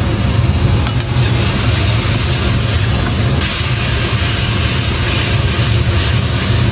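Minced garlic frying in hot oil in a wok, a steady sizzling hiss over a low, steady rumble; the hiss grows brighter about three and a half seconds in.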